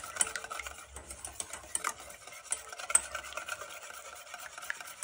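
Wire whisk beating raw eggs with chopped onion in a stainless steel bowl: rapid, irregular light clicking as the wires strike the bowl's sides.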